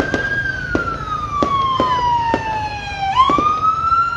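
A siren wailing, its pitch sliding slowly down and then rising sharply about three seconds in, with fireworks going off in sharp bangs throughout.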